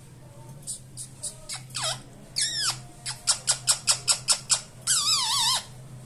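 Indian ringneck parakeet calling: a few short chirps that drop in pitch, then a quick run of about eight sharp chirps, ending in a wavering, warbling trill about five seconds in.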